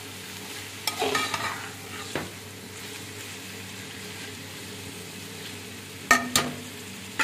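Chopped vegetables sizzling in oil in a metal pot, stirred with a metal spatula that scrapes against the pot a few times: about a second in, near two seconds, and twice around six seconds.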